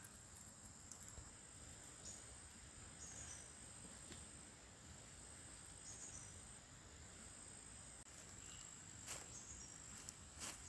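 Faint, steady high-pitched insect chirring with a few short chirps, and a few soft clicks near the end.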